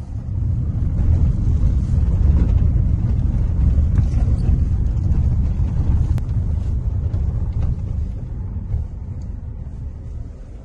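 Low rumble of a car on the move, heard from inside the cabin: road and wind noise. It swells early, holds steady, and eases off near the end as the car slows.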